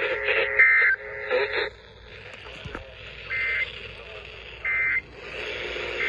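Weather alert radio sending the short two-tone digital data bursts of an Emergency Alert System message. One comes about half a second in, then three more follow, evenly spaced about 1.3 s apart from midway: the end-of-message signal that closes the flash flood warning. Faint radio hiss fills the gaps between the bursts.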